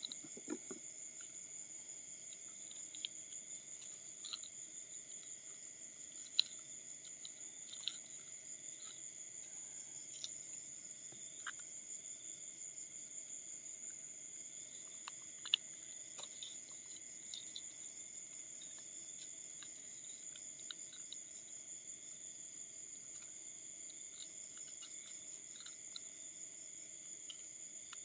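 A steady, shrill chorus of night insects with a lower steady drone under it, and scattered faint clicks and rustles from hands working a fishing hook out of a fish.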